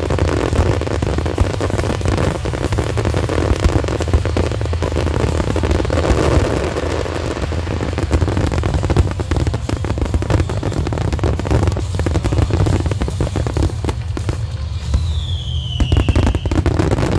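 Fireworks finale barrage: a dense, continuous run of rapid bangs and crackle from many shells going off together. Near the end a whistle falls in pitch over a second or so.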